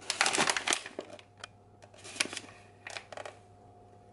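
Brown paper flour bag crinkling as a hand grips and crumples its folded top: a dense rustle in the first second, then a few separate crinkles.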